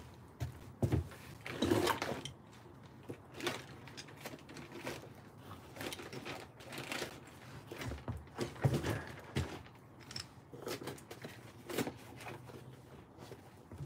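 Rummaging through a soft tool bag: irregular knocks, clicks and rustling as tools are moved and picked out.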